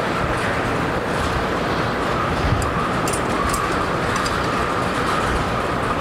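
Steady rumbling mechanical noise, with a short run of ratchet clicks about halfway through as a socket ratchet is worked on an engine-block bolt.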